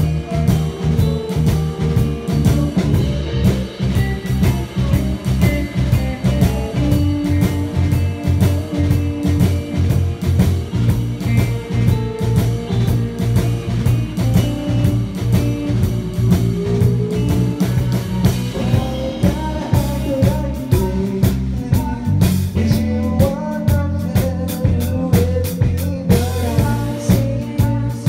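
A band playing a rock song live: electric guitar over drums keeping a steady beat.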